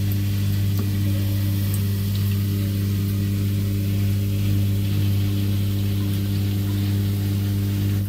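Drain pump of a Samsung WF8750LSW1 front-load washing machine running during the drain cycle: a steady, even hum with a low tone and its overtones.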